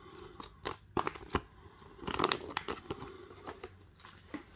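Thin paper instruction leaflet rustling and crinkling as it is handled, with several sharp clicks and a louder patch of rustling about two seconds in.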